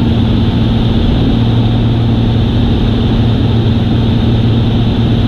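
Single-engine piston light aircraft in cruise, heard from inside the cockpit: a steady engine and propeller drone with an unchanging low hum.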